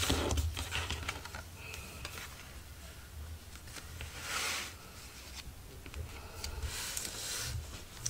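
Patterned scrapbook paper being folded closed and pressed flat by hand on a cutting mat: light rustling and rubbing, with a brief soft swish about four seconds in and a few small ticks, over a low steady hum.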